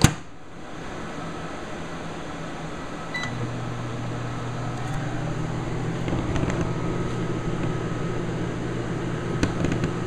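Microwave oven running: a sharp click at the start, then a steady hum that gets deeper and louder about three seconds in and keeps on.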